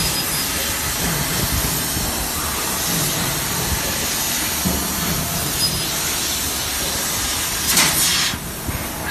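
1000 W laser cutting machine running with a steady hissing rush. Near the end a sharper hiss swells briefly, then the level drops a little.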